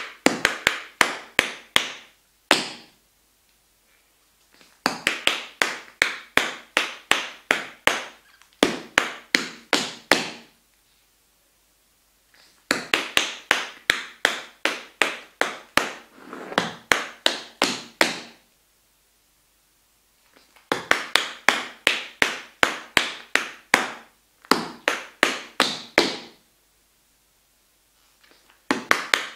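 Tap shoes' metal taps striking a wooden floor in quick, rhythmic phrases of several seconds each, separated by short silent pauses as the same tap step is repeated.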